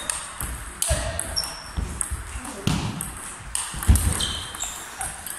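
Table tennis rally: sharp clicks of the ball off the racket and the table in quick succession. Between them come heavy thuds of lunging footwork and brief squeaks of shoes on the hall floor.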